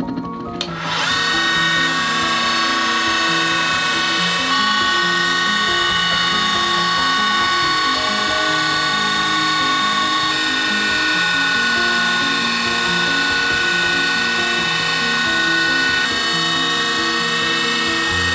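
JET wood lathe spinning up about a second in, then running steadily with a high motor whine. Background music plays under it.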